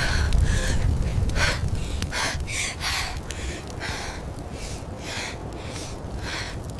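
A woman's quick, ragged panting and gasping, about two breaths a second, over a low rumble that is strongest in the first second or two and then fades.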